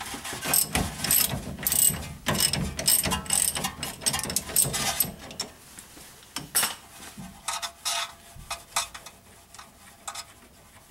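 Hand ratchet wrench clicking in quick runs as it loosens a shock absorber mounting bolt. The clicking thins to a few scattered clicks after about six seconds.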